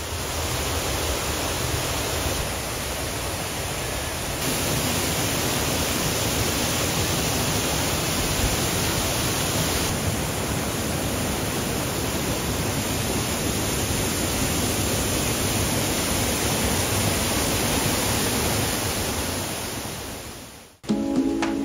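Waterfall: a steady rush of falling water that holds even and unbroken, then cuts off near the end.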